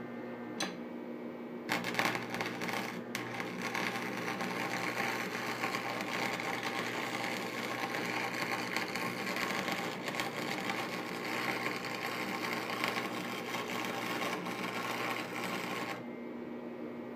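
Stick-welding arc from a 6011 electrode on the steel mower deck: a brief strike at the start, then a steady crackling arc for about fourteen seconds that breaks off about a second before the end.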